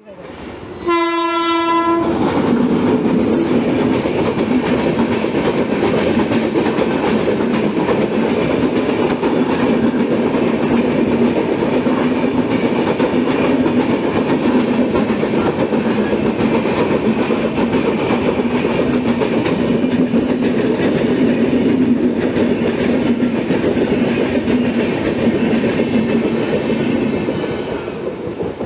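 An electric locomotive's horn sounds one short blast about a second in, then the Rajdhani Express's coaches pass close by with a loud, steady rumble of wheels on the rails, which fades near the end as the last coach goes by.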